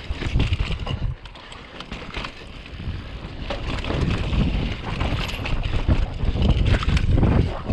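Downhill mountain bike descending over dirt and rock, with wind rumbling on the action-camera microphone and the tyres and bike rattling and knocking over the ground. The rush drops back about a second in, then builds again.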